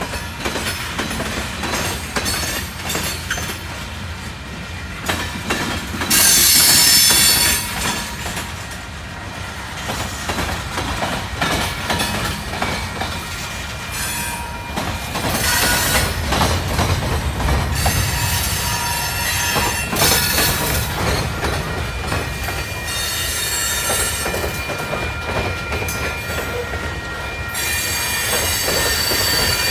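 Freight train of covered hopper cars rolling steadily past at close range, wheels clattering over the rail joints. Several times the wheels squeal in high-pitched stretches of one to three seconds, the loudest about six seconds in.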